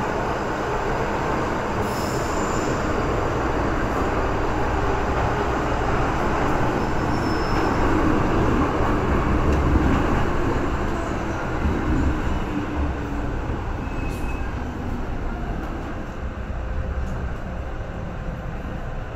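MTR M-train electric multiple unit running at speed through a tunnel, heard from inside the carriage: a continuous rumble and roar of wheels on rail, loudest about halfway through. It eases off near the end as the train comes out into the open.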